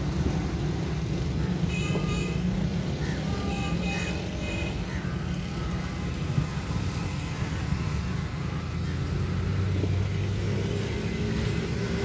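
Steady low hum of motor vehicle engines, with a few short high-pitched calls about two and four seconds in.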